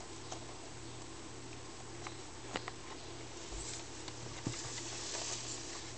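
A galah (rose-breasted cockatoo) picking at and tearing paper labels off tin cans: faint scratchy rustling with scattered small clicks and taps against the cans. The rustling grows a little louder about five seconds in.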